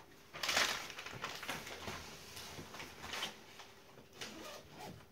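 Rustling and soft bumps of an IKEA Hövag mattress being tipped over and handled, with a brief loud swish of its fabric about half a second in.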